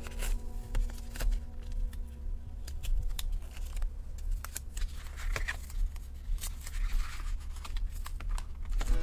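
Close-up paper and stationery handling while journaling: irregular clicks, taps and short paper scrapes and rustles, over a steady low hum.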